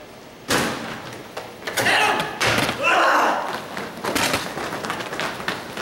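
A heavy door slams shut about half a second in, followed by scattered thumps and knocks, with some indistinct voices.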